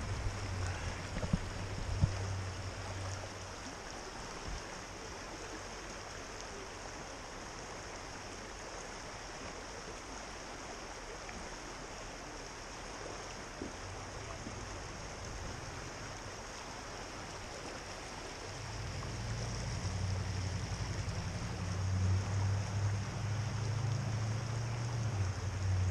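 Fast river current rushing steadily past, with wind buffeting the microphone as a low rumble in the first few seconds and again, louder, over the last several seconds.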